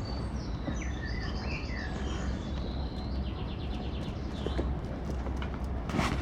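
Small birds chirping and trilling, with a rapid trill about three seconds in, over a steady low rumble of background noise.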